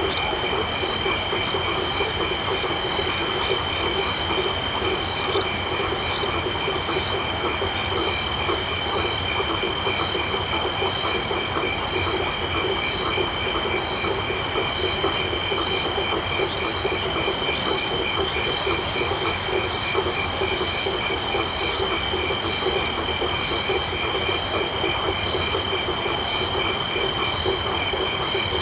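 Night chorus of crickets and frogs: steady, high, pulsing insect trills layered over a lower, rapidly pulsing frog chorus, continuous and even throughout.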